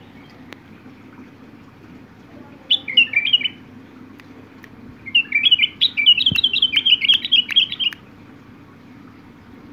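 Caged white-eared bulbul singing: a short phrase of quick notes flicking up and down in pitch about three seconds in, then a longer phrase of about three seconds.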